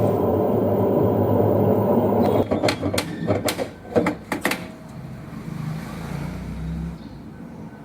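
LG direct-drive washing machine running with a loud steady noise, caused by its two worn drum bearings; the noise stops about two and a half seconds in. A run of sharp clicks and knocks follows, then a faint low hum.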